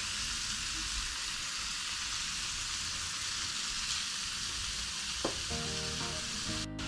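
Murray cod fillets sizzling steadily on a hot non-stick electric grill plate, with a single click of the tongs about five seconds in. Faint background music comes in near the end.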